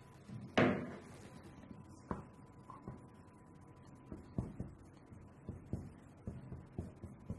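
Whiteboard marker writing: a series of short scratchy strokes and taps of the pen tip on the board, with one louder thump about half a second in.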